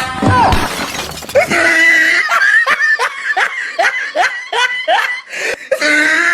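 A person laughing hard in quick, repeated bursts, about three a second, starting a second or so in.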